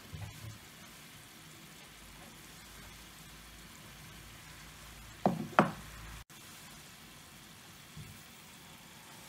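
Chicken broth simmering in a stainless steel pot, a steady low bubbling hiss. Two sharp knocks come about five seconds in, and salt is poured in near the end.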